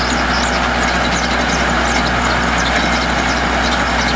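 Engine of a truck-mounted core drilling rig running steadily at a low, even idle.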